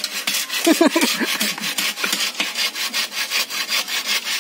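Hand saw cutting through a split bamboo slat in quick, even back-and-forth strokes.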